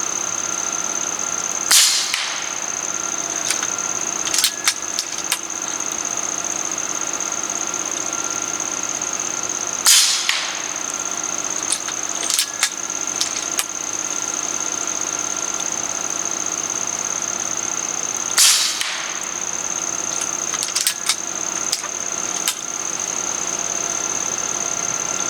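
JTS Airacuda Max .30 caliber regulated PCP air rifle firing three shots, about eight seconds apart. Each shot is followed a few seconds later by a cluster of sharp clicks as the action is cycled for the next pellet. A steady high whine runs underneath throughout.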